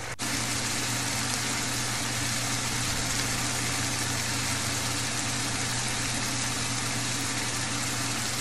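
Steady hiss and low hum of a covered pan of hilsa in mustard gravy simmering on the stove.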